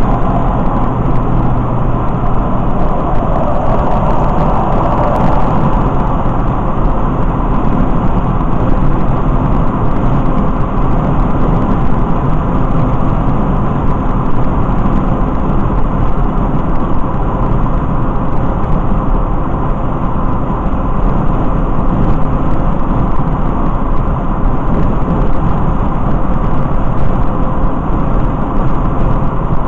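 Steady road and engine noise of a car cruising at highway speed, heard from inside the cabin, briefly louder about four seconds in.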